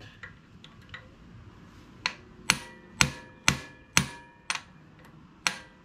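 Hammer striking a hand impact driver to break loose over-tightened screws in a 1975 Honda Goldwing GL1000's ignition points plate. About seven sharp metal-on-metal blows, roughly two a second, starting about two seconds in, each with a brief metallic ring.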